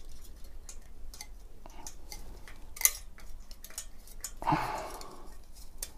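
Small metal clicks and light taps as the steel retention bracket is worked into place on the base of a Cooler Master Hyper 212 Evo tower CPU cooler. One sharper click comes just under three seconds in, and a brief scraping rustle follows about a second and a half later.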